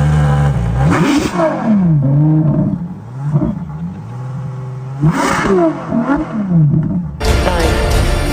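High-performance car engine being revved, its pitch sweeping up and falling back in repeated sharp blips in two bursts. Near the end it cuts suddenly to a denser, steadier noise.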